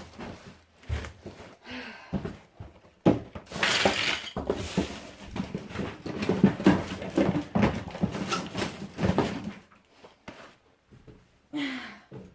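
Irregular knocks, clatter and scraping from hands working at a washing machine's hose connection, busiest from about three to ten seconds in.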